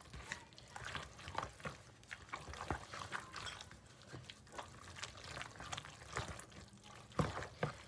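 A thick, creamy sauce being stirred in a bowl: faint irregular wet clicks and scrapes of the utensil, with a slightly louder knock near the end.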